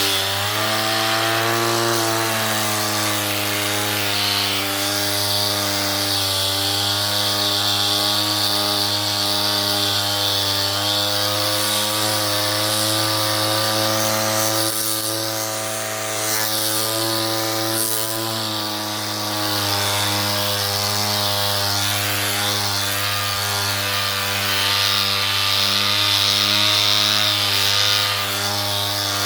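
Ryobi angle grinder with a sanding disc running steadily while sanding wooden fence pickets, its motor whine sagging a little now and then over the scrape of sandpaper on wood.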